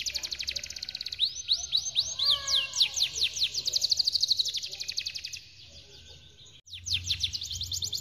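Domestic canary singing long rolling trills: rapid runs of high, quickly falling notes. After about five seconds the song drops away for a second or so, then starts again.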